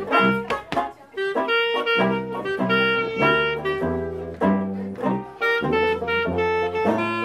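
Trad jazz band playing an instrumental passage: horns and clarinet over a tuba bass line, with a brief dip about a second in.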